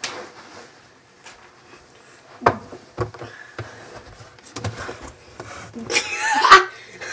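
Two sharp knocks about half a second apart, then a boy's voice, wavering and loudest near the end.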